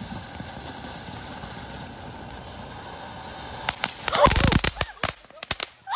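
Ground fountain firework hissing steadily as it sprays sparks, then about two-thirds through it breaks into rapid loud crackling pops and bangs.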